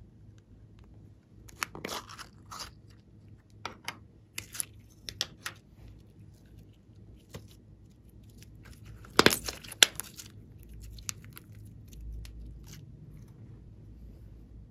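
Hands pulling, stretching and pressing a lump of soft clay, making scattered sticky clicks and crackles in short clusters, with two sharp loud snaps about nine to ten seconds in.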